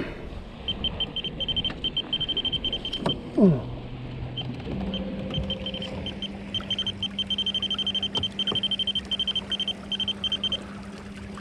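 Small electric trolling motor humming steadily from about five seconds in. Two short falling whines near the start and about three seconds in are the loudest sounds, and two runs of rapid high-pitched ticking come and go.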